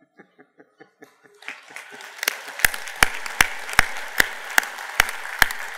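Audience applause in a convention hall: a few scattered claps, then it swells into full applause about a second and a half in. From about two seconds in, loud single claps come evenly, about two and a half a second, over the crowd's clapping.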